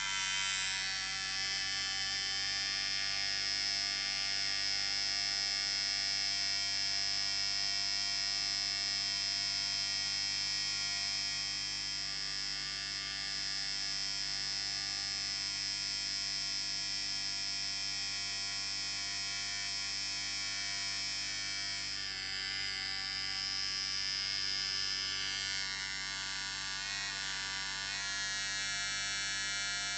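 Electric beard trimmer running continuously with a steady buzzing hum, its tone shifting slightly about two-thirds of the way through.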